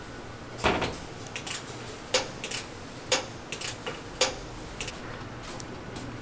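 Irregular sharp clanks and knocks of kitchen utensils and cookware: four louder hits spaced about a second apart, with lighter clicks between them, easing off near the end.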